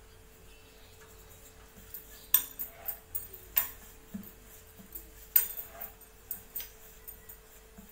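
Wooden rolling pin working a stuffed paratha on a wooden board, with several sharp clicks and clinks from the pin knocking the board and the bangles on the wrists jingling.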